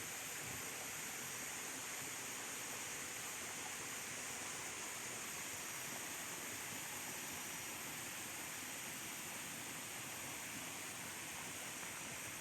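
Steady rushing of water from river rapids: an even, unbroken hiss.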